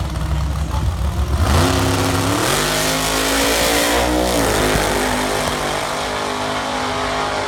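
Drag car at the start line with a low engine rumble, launching about a second and a half in and accelerating hard down the strip, its engine note climbing in pitch in steps, then running on steady and loud.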